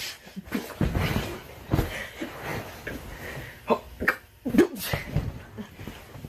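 Scuffling and bumping of two people wrestling on a carpeted floor, with short grunts and breathy outbursts; the loudest cries come about four to five seconds in.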